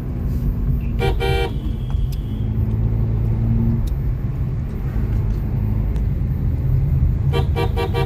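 Steady low rumble of a car driving on the road, heard from inside the cabin, with a vehicle horn sounding once about a second in and several quick toots near the end.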